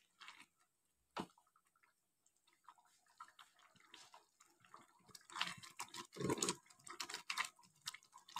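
A wooden spatula stirring thick spinach gravy in a nonstick pan. There is one sharp tap on the pan about a second in, then wet plopping, bubbling and scraping, louder in the second half as the thinned gravy simmers.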